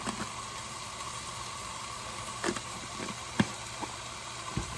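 A few light knocks and clicks from seasoning containers being handled, over a steady kitchen background hiss; the sharpest knock comes a little past the middle.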